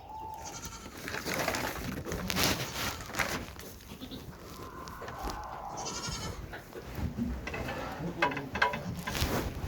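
Goats bleating: a short call right at the start and a longer, higher call about five seconds in, over scattered rustling and clicking in the pen.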